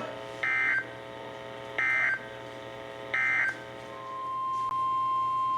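Emergency Alert System end-of-message data signal: three short, equally spaced bursts of warbling digital tones. About four seconds in, a single steady beep-like tone comes in and holds to the end.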